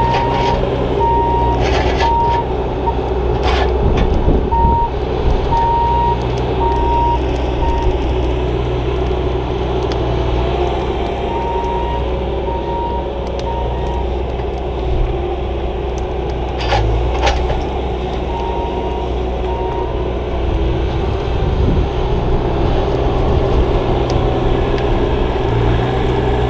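Diesel engine of compact heavy equipment running steadily, its backup alarm beeping in several runs as the machine reverses, with a few sharp knocks.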